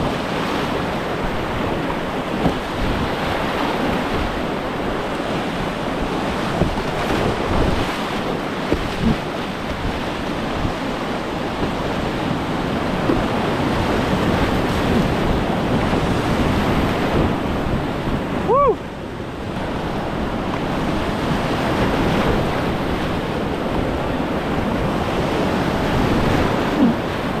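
Whitewater river rapids rushing steadily, a constant wash of water noise. One short high chirp rises and falls about two-thirds of the way through.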